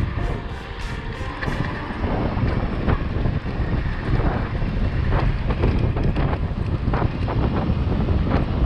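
Wind buffeting the microphone of a camera on an electric scooter moving at speed: a steady low rumble with occasional sharp clicks.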